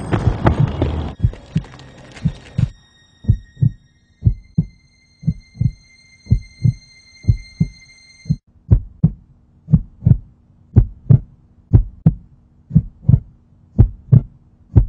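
Heartbeat sound effect: paired low thumps about once a second that quicken after about eight seconds, under thin high sustained tones that cut off about eight seconds in. A loud rushing noise covers the first two and a half seconds.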